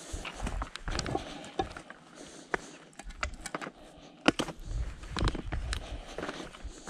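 A hiker's footsteps crunching over a stony dirt trail, with irregular sharp clicks of walking sticks striking rock, the loudest about four seconds in.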